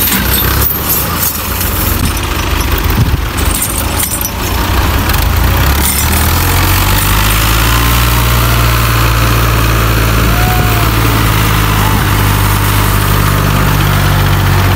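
Diesel tractor engines running under load as an Al-Ghazi tractor tows a stuck Belarus tractor out on a chain. The sound is uneven for the first few seconds, then settles into a steady low engine drone about six seconds in.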